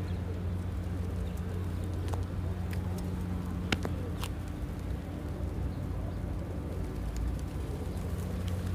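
Outdoor ambience by a flock of feral pigeons on a paved square: a steady low hum runs throughout, with a few sharp clicks near the middle, the loudest about four seconds in.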